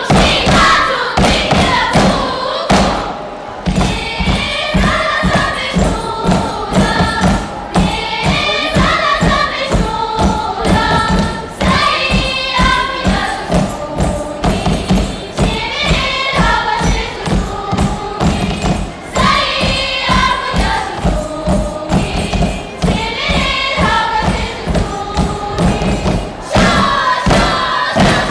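A chorus of girls' voices singing a Tibetan song together, over a steady rhythm of thuds on the stage floor.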